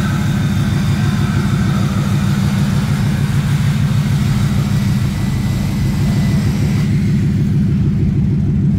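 Dodge Challenger's 392 Hemi V8 with its middle muffler deleted, running with a deep, steady exhaust rumble made of quick, even pulses.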